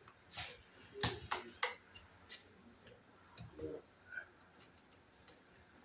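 Sharp clicks and ticks of a screwdriver working a terminal screw on a GFCI receptacle, tightening the wire under its pressure plate: a cluster of clicks in the first couple of seconds, then fainter scattered ticks.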